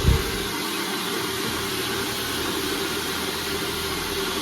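Handheld hair dryer running steadily: an even rush of blown air over a faint steady motor hum, with a brief low thump right at the start.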